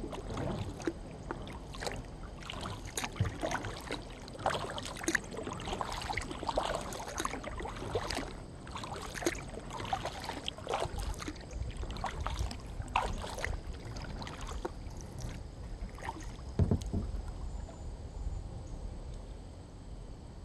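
Kayak paddling on calm water: the paddle blades dip in and out with irregular splashes and drips. About three-quarters of the way through there is a single dull knock, the loudest sound here, and the splashing thins out after it.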